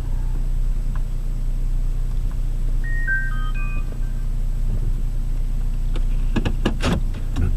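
Steady low hum of a car on the road. About three seconds in comes a short electronic chime of a few clear notes stepping down in pitch, and a few sharp clicks follow near the end.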